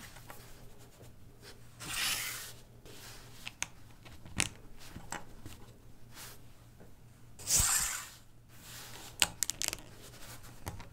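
Small LEGO plastic plates handled and pressed together by cotton-gloved fingers: two short scraping rustles, about two and seven and a half seconds in, and a scatter of sharp plastic clicks, several in quick succession near the end.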